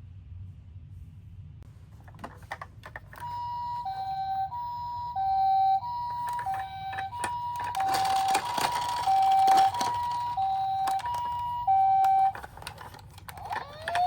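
Japanese ambulance two-tone "pee-poh" siren alternating evenly between a high and a low note, starting about three seconds in and stopping shortly before the end, with scattered clicks and knocks throughout. Near the end, a rising wailing siren begins.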